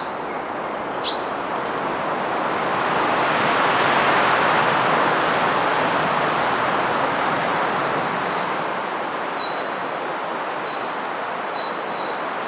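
Wind gusting through mountain trees in winter, a steady rush that swells over the first few seconds and slowly eases off. A brief high chirp sounds about a second in, with a few faint high notes later.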